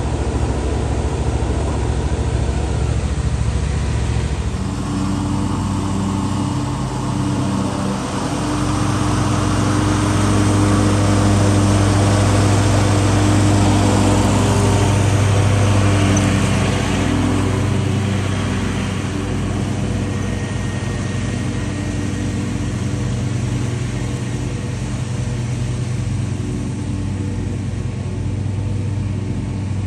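Stand-on zero-turn lawn mower's engine running steadily while mowing. It grows louder as the mower passes close, about ten to fifteen seconds in, then eases off as it moves away.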